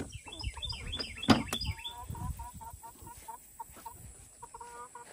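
Hens clucking in a run of short repeated notes, with a burst of high chirping calls in the first couple of seconds. Two sharp knocks come about a second and a half in.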